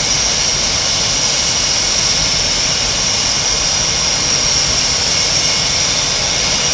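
Blue Angels F/A-18 Hornet jets running their twin turbofan engines on the ramp before takeoff: a loud, steady jet whine with a high piercing tone over a low rumble.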